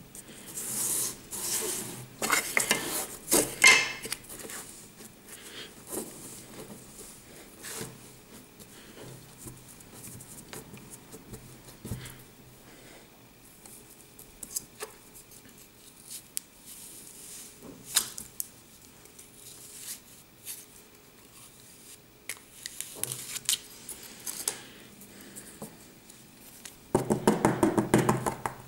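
Plastic sand-castle molds being handled, tapped and set down on a tabletop while kinetic sand is pressed and broken up: scattered clicks and rustles, louder for a few seconds early on and with a quick run of rapid clicking near the end.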